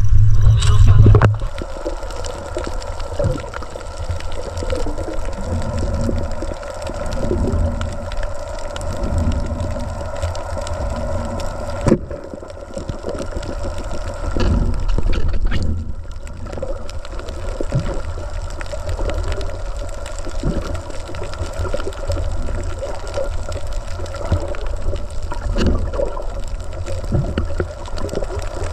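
Muffled underwater sound, water moving and gurgling around the camera with a steady faint hum beneath it. A loud low rumble from above the surface cuts off about a second in.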